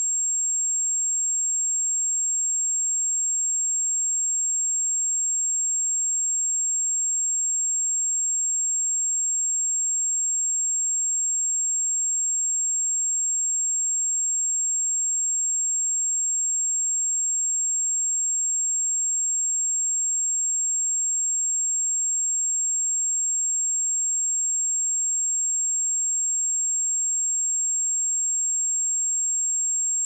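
A pure 7527 Hz sine-wave test tone: one steady, unwavering high-pitched whistle at a constant level.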